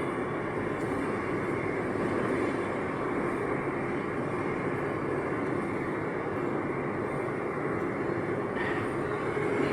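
Santiago Metro AS-02 train running, heard from on board: a steady rolling rumble of wheels on track and running gear, with a brief faint high squeal near the end.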